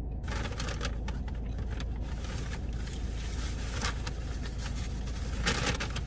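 Steady low hum and hiss inside a car, with soft chewing clicks and a brief rustle about five and a half seconds in.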